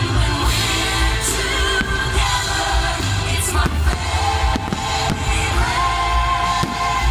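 Fireworks-show soundtrack music with singing, played over loudspeakers, with firework bursts banging several times over it.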